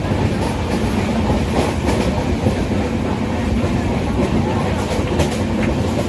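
Steady rumble of a running train heard inside the coach of the 12366 Patna Jan Shatabdi Express, with occasional clicks of the wheels over rail joints.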